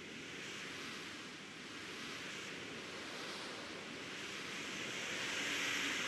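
Steady rushing noise of wind and water, with no tune or motor whine, slowly growing louder.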